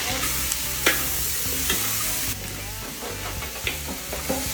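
Food sizzling in hot oil in a pan while a spatula stirs it, with a few sharp clicks of the spatula against the pan.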